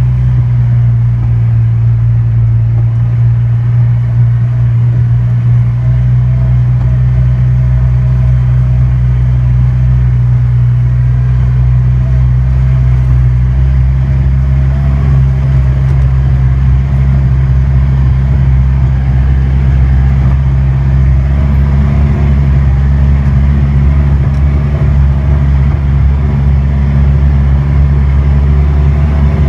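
Ranger utility vehicle's engine running steadily under way as a loud low drone, its pitch edging up slightly about two-thirds of the way in.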